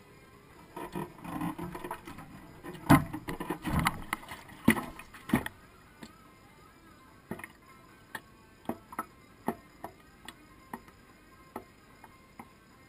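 Knocks and clatter close to the microphone for the first five seconds, two of them sharp and loud. Then sparse, irregular ticks about once a second from the stopped motorcycle, its engine off and cooling.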